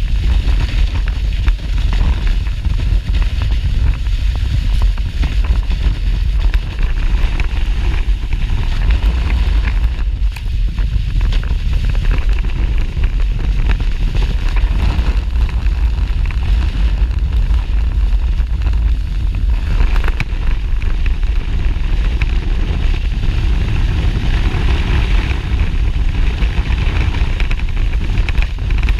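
Wind buffeting the camera's microphone during a fast slide down packed snow, a steady low rumble with a hiss of the snow beneath it.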